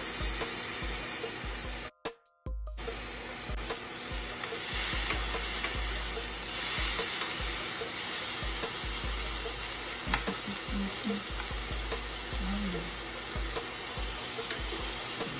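Marinated watermelon steaks sizzling steadily on a hot indoor grill as more slices are laid on, with a few faint clicks. The sound cuts out briefly about two seconds in.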